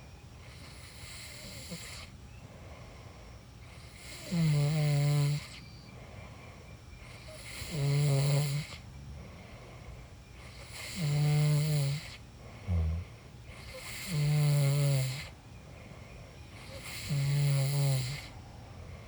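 A sleeping person snoring: five low, rasping snores of about a second each, one roughly every three seconds, with a short snort between the third and fourth. Behind them runs a steady, fainter hiss of night insects.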